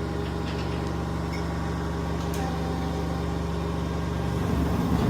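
Steady hum of CNC shop machinery, with a faint click about two and a half seconds in.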